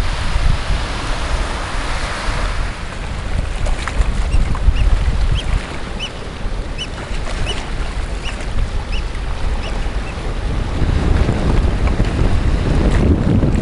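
Wind buffeting the microphone over choppy sea surf washing against a rocky shore, the wind rumble growing stronger near the end. From a few seconds in until past the middle, a run of short high chirps repeats about every two-thirds of a second.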